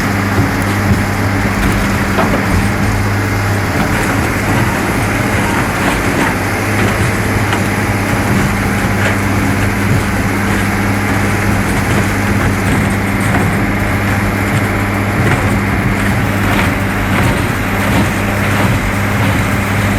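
Heavy-duty Doppstadt tree shredder running steadily under load, a constant low engine hum under a dense mechanical din, with scattered light knocks from material in the hammers.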